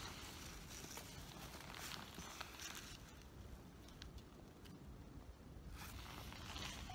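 Faint rustling of dry twigs and leaves being handled, with a few small clicks and snaps as kindling is fed into a small fire.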